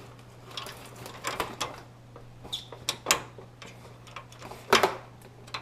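Packaging and parts being handled: scattered clicks, knocks and short rustles, the loudest a pair of knocks a little before the end, over a steady low hum.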